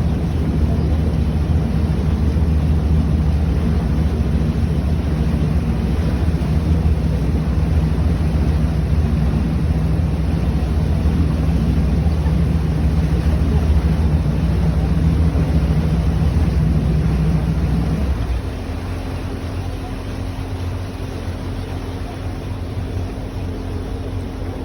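River tour boat's engine running with a steady low hum; about three-quarters of the way through it eases off and turns quieter.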